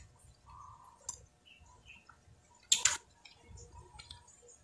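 Eating raw oysters: faint small clicks and wet mouth sounds, with one brief, sharp scrape of a spoon or shell against an oyster shell a little over halfway through.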